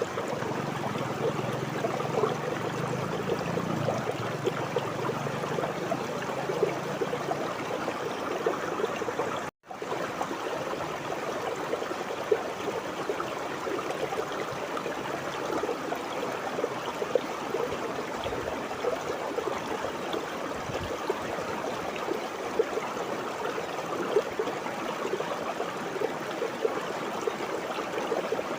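River water flowing and babbling steadily over rocks, an even gurgling rush, broken once by a sudden split-second gap of silence about ten seconds in.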